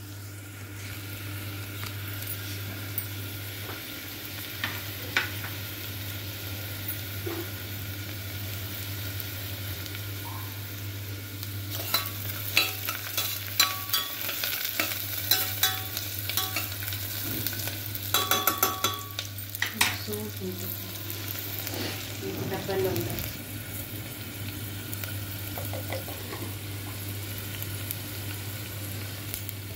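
Sliced onions sizzling as they fry in oil in a stainless-steel pressure cooker, with a steady low hum underneath. A spoon stirs them, clicking and scraping against the metal pot in a run of knocks from about twelve to nineteen seconds in.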